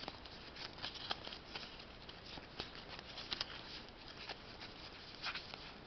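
A stack of cardboard baseball trading cards being leafed through by hand, the cards sliding and snapping against each other in soft, irregular clicks and rustles.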